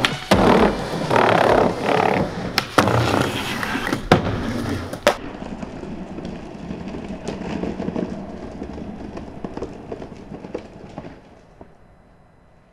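Skateboard on concrete: a few sharp board clacks and landing impacts in the first five seconds, then the wheels rolling steadily on pavement, fading out near the end.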